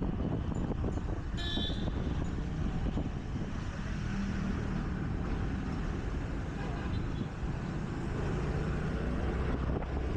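Scooter riding in city traffic: a steady low engine and road rumble mixed with wind on the microphone. A brief high tone sounds about one and a half seconds in.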